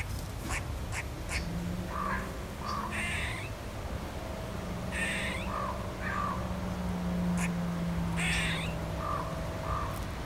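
Crow cawing three times, a couple of seconds apart, over a low steady hum.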